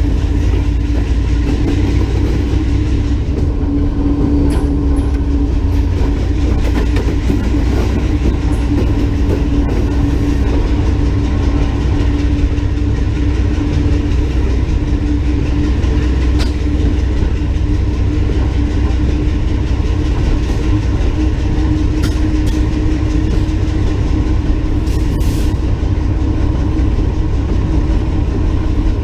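Diesel locomotive running steadily down the line: a continuous heavy rumble with a steady engine hum, and the wheels clicking now and then over the rail.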